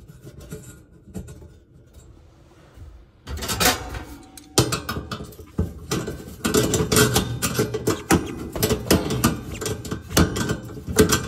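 Metal hand tool scraping and clicking on a mounting bolt under the oven as the bolt is worked loose to free the igniter. Fairly quiet for the first three seconds or so, then a busy run of rasping and sharp clicks.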